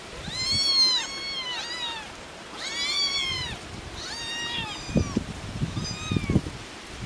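Several hungry farm kittens meowing, high-pitched calls that rise and fall in pitch, some overlapping, about six in all. Low thumps of wind on the microphone come about five to six and a half seconds in.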